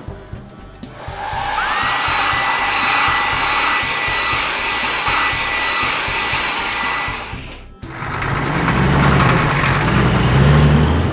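Cartoon car-wash sound effects: a loud, steady blower hiss with a whine that rises and then holds, cutting off sharply. After it, a low engine rumble builds as the vehicle pulls away.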